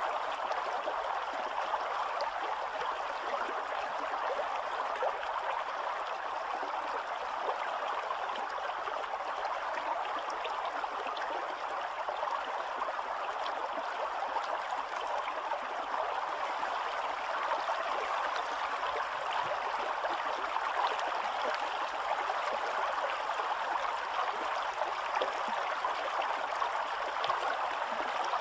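Shallow stream flowing over a stony bed, a steady rush of running water.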